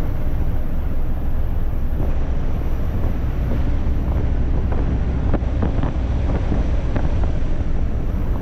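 Cabin noise inside a De Havilland C-147A twin-turboprop in flight: the engines make a steady, loud low rumble under rushing airflow. A few short clicks or knocks come around the middle.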